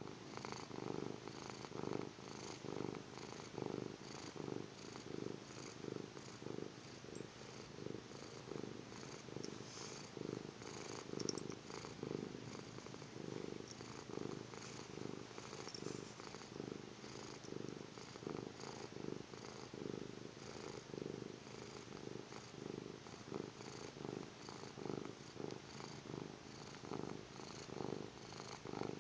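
A domestic cat snoring: a steady, rhythmic rasp repeating evenly with its breathing.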